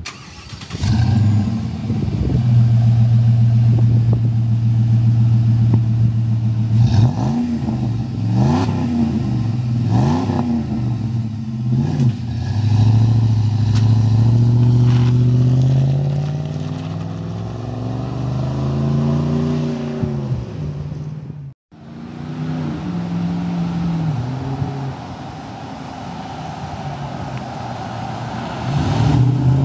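Dodge Ram's 4.7-litre V8 through a CGS cat-back exhaust, running with a deep, steady note. The throttle is blipped several times, each rev rising and falling back, then the revs ease down slowly. The sound drops out for a moment and the engine note resumes, climbing again near the end.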